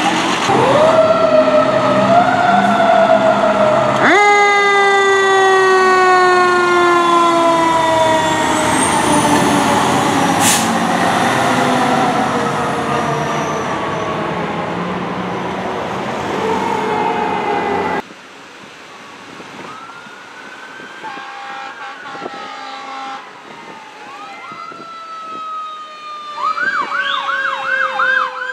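Fire truck sirens. A siren winds up and then falls slowly in pitch for over ten seconds. After a sudden cut, a quieter siren wails and switches to a fast yelp near the end.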